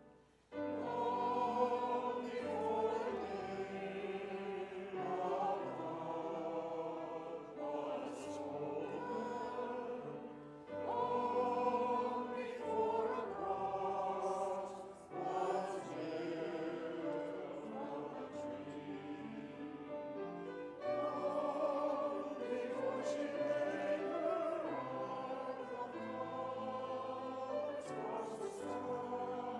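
Church choir singing a hymn in parts, held notes broken into phrases by short pauses; a new verse begins about halfway through.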